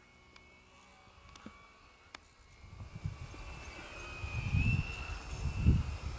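Faint high whine of an electric RC model airplane's motor and propeller flying overhead. From about three seconds in it is overtaken by gusts of wind buffeting the microphone, growing louder.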